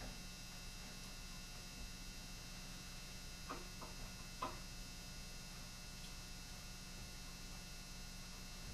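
Steady low electrical hum, with three faint small metallic clicks about three and a half to four and a half seconds in as the parts of a Colt Walker cap-and-ball revolver are handled during reassembly.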